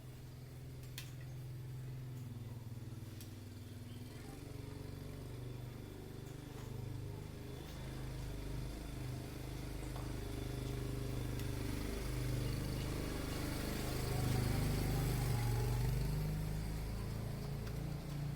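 An engine running with a low steady hum that grows louder in the last few seconds.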